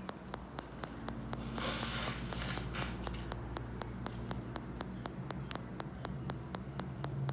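A person breathing forcefully through the nose, a noisy rush in two or three pieces about two seconds in, over a steady fast ticking of about five clicks a second.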